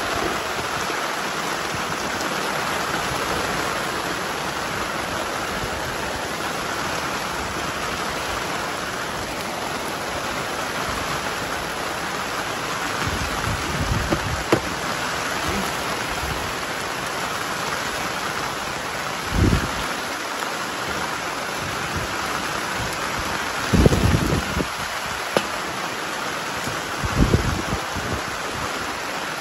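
Steady rain falling on strawberry plants and a rain jacket, an even hiss throughout. A few short low bumps hit the microphone, the loudest near the end.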